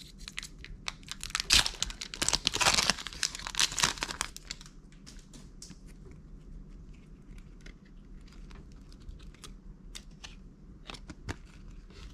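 Foil trading-card booster pack being torn open, its wrapper crinkling for about the first four seconds. After that come scattered light clicks and taps of the cards being handled and flipped through.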